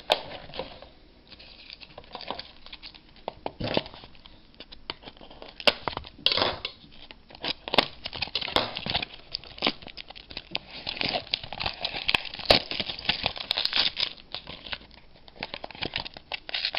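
Plastic wrapping on a small pack of trading cards crinkling and tearing as it is picked and pulled open by hand, in irregular crackles and rips with a few short pauses; the wrapping is hard to get open.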